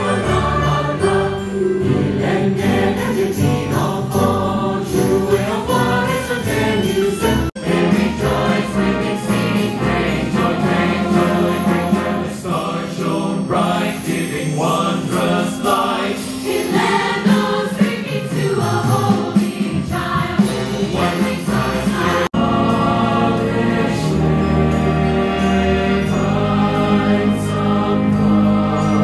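A large choir singing with a live orchestra under a conductor, choral Christmas music. The sound cuts out for a split second twice.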